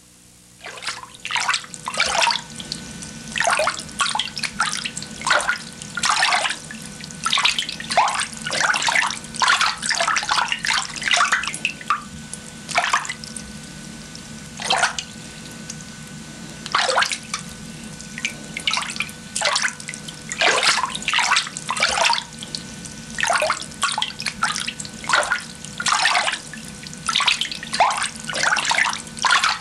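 Liquid splashing and sloshing in irregular bursts, over a faint steady hum.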